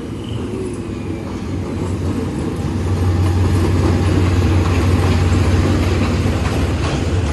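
Diesel locomotive engine running close by, a steady low hum that grows louder about three seconds in.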